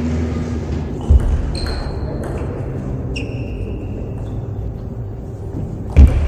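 Table tennis rally in a large hall: the celluloid ball clicks off bats and table with short ringing pings, over a steady crowd hubbub. A heavy thump comes about a second in and another near the end.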